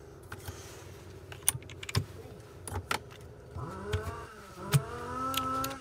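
Sharp metallic clicks and clinks of tools and small parts being handled, then about three and a half seconds in a small electric motor spins up into a steady whine, stops briefly, and runs again near the end.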